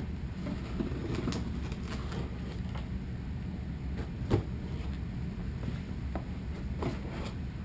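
A cardboard shipping box being opened by hand: scattered rustles, scrapes and light clicks of packaging, with one sharper click about four seconds in, over a low steady hum.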